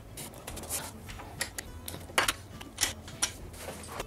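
A small metal hand tool working the metal bracket of an IKEA VIKARE guard rail as its fitting is tightened, giving about eight light, irregular clicks and ticks.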